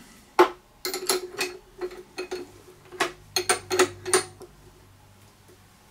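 Two steel 17 mm spanners clinking on the nut and bolt of a power inverter's negative cable terminal as the nut is tightened: a string of irregular short metallic clinks with a slight ring, over about the first four seconds.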